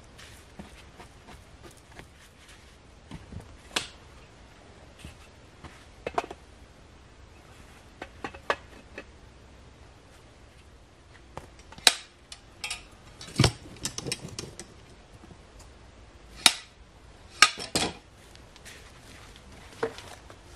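Irregular sharp knocks and clinks of hand tools and wooden posts being handled during post-setting work, sparse at first, with the loudest cluster in the second half.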